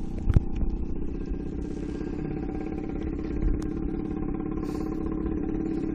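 A small engine running steadily with an even, pitched hum, and a single sharp knock just after the start.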